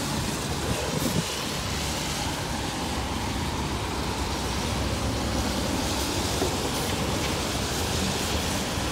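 Steady street traffic on a wet road: car tyres hissing through the water as they pass, over the idle of a New Flyer XD40 city bus standing at the curb.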